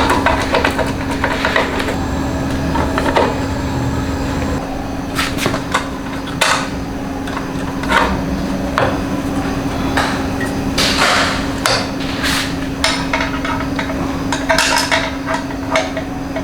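Irregular metallic knocks and taps as a slip-on exhaust muffler is worked onto a motorcycle's exhaust pipe, over a steady low hum.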